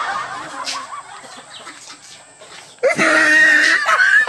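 A boy's loud, high-pitched cackling laughter, bursting out about three seconds in after a quieter stretch.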